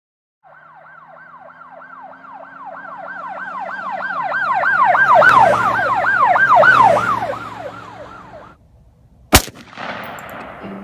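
Emergency-vehicle siren in a fast yelp, about four sweeps a second, growing louder to a peak in the middle, then fading and cutting off. About a second later comes a single sharp gunshot.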